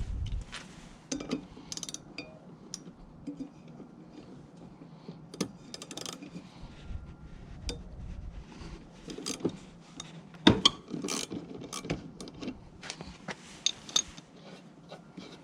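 Irregular clicks, knocks and clatter of hand tools and metal parts while working on an electric lawn mower's blade mounting, with a sharper knock about ten seconds in.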